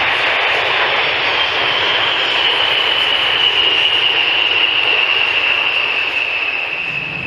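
An aircraft flying past: a steady, loud engine roar with a high whine that slowly falls in pitch.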